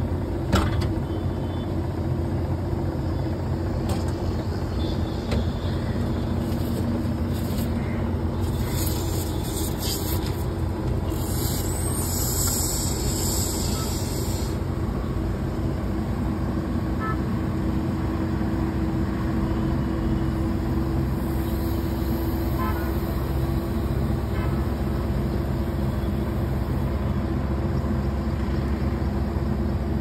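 Outdoor unit of a Samsung DC inverter split air conditioner running steadily, its compressor and fan humming, while it is charged with R32 refrigerant.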